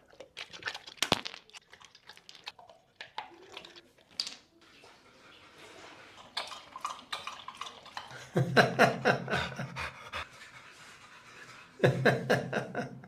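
Pitbull panting hard after play. Faint and broken at first, then loud rhythmic panting about eight seconds in, and again near the end.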